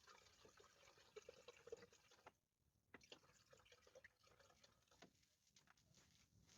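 Near silence with faint, scattered small clicks and ticks, and a brief fuller hush about two and a half seconds in.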